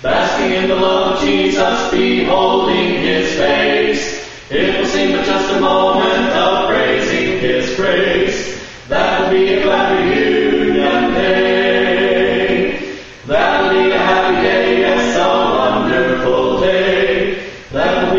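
A cappella mixed vocal quartet, one woman and three men, singing together in harmony without accompaniment, in long phrases of about four seconds with a short breath between each.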